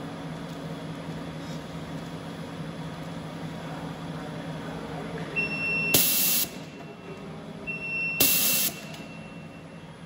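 X-ray inspection machine's air-jet rejector firing two short, loud hissing blasts of compressed air about two seconds apart, each just after a high steady beep, as it blows contaminated fruit bars off the conveyor. A steady machine hum runs underneath.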